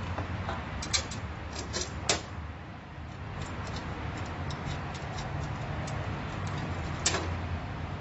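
Small metal clicks and taps, a sharp click about two seconds in, a run of light ticks, then another sharp click near the end: hands fitting a 3/4-inch cable clamp into the knockout of a UPS's sheet-metal input plate. A steady low hum runs underneath.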